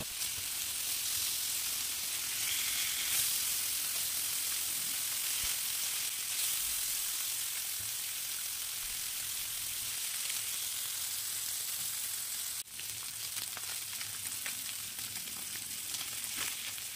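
Rohu fish steaks shallow-frying in mustard oil in a frying pan: a steady sizzle, broken by a short drop-out about twelve seconds in, with a few light spatula taps near the end.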